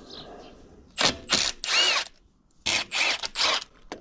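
A ratcheting tool runs in two spells of short bursts, about a second in and again near three seconds in, as it undoes bolts on a slurry tanker's vacuum pump.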